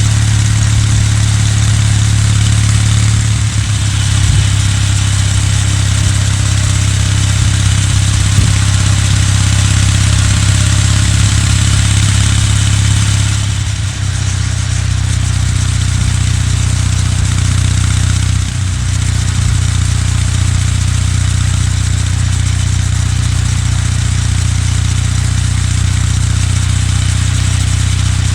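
Kawasaki W800's air-cooled parallel-twin engine running steadily under way, with a rushing haze of wind and road noise above it. The engine note dips briefly three times, about 4, 14 and 19 seconds in.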